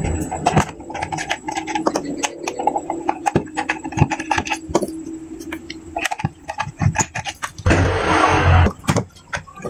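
Small screwdriver turning screws out of a plastic portable speaker case, with irregular clicks and ticks of the tool, screws and plastic housing being handled. About 8 s in, a louder rushing noise lasts under a second.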